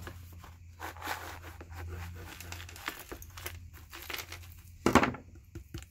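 Shop-floor sweepings of dust, grit and tiny copper wire scraps being dumped out and spread around: a scattered rustling and light clattering of small pieces, with a louder clatter about five seconds in.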